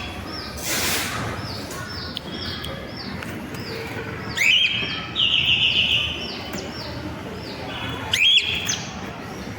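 Birdsong: a steady series of short high chirps about twice a second, broken by a louder rising call about four seconds in, a brief buzzy trill just after it, and another rising call near the end.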